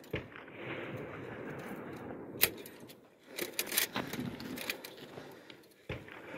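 Small-arms gunfire: single sharp cracks near the start and at about two and a half seconds, a quick run of several shots around three and a half to four seconds, then a few more, over a steady background hiss.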